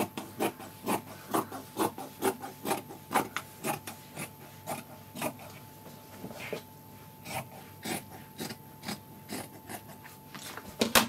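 Fabric scissors snipping through white cotton lining fabric on a cutting mat, a steady run of short crisp cuts about two a second. There is one louder sharp click near the end.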